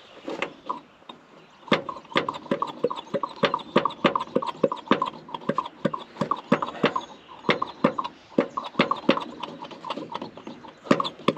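Steady run of sharp mechanical clicks, about three a second, starting about two seconds in.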